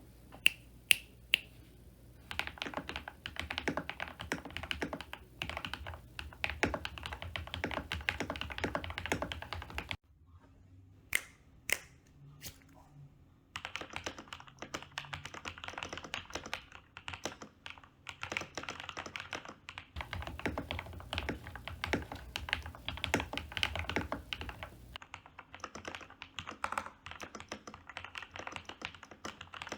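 Typing on an MK870 mechanical keyboard with lubed and filmed Gateron Milky Yellow Pro linear switches, PBT keycaps, a polycarbonate plate and foam mods. A few single keystrokes come first, then fast continuous typing that pauses about ten seconds in for a few lone keystrokes before resuming.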